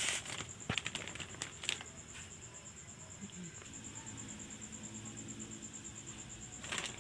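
Plastic bag of frozen french fries crinkling, with a few sharp crackles in the first two seconds. It is followed by a faint steady hum.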